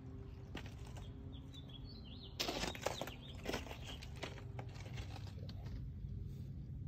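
Faint bird chirps, then about three seconds of dense rustling and crackling clicks over a low steady background rumble.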